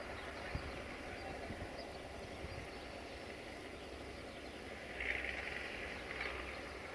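Faint low rumble of a small diesel rail maintenance vehicle creeping toward the camera along the track. There is a steady outdoor hum throughout, with two short high chirps about five and six seconds in.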